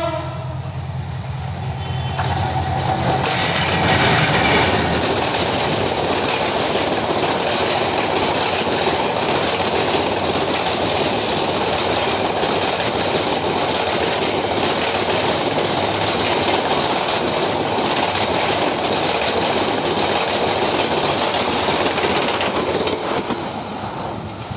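Hyundai Rotem diesel-electric locomotive and its passenger coaches passing close at speed. The sound swells as the locomotive comes by about three to four seconds in, then holds as a long steady rumble of wheels on the rails while the coaches go past, fading near the end.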